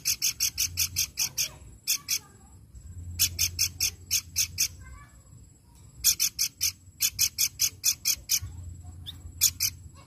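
Pelanduk bukit, a babbler, singing: fast runs of sharp, evenly repeated high notes, about six a second, in three bursts of one to two seconds with short pauses between.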